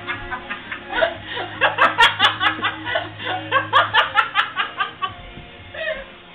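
Hearty laughter in rapid pulses, about four or five a second and loudest between about one and five seconds in, over music playing in the background.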